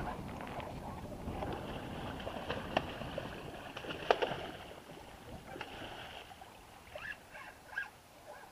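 Water splashing as a hooked wels catfish thrashes at the surface beside a kayak. There is a sharp splash near the three-second mark, and the loudest splash comes about four seconds in. Smaller splashes follow before the water settles.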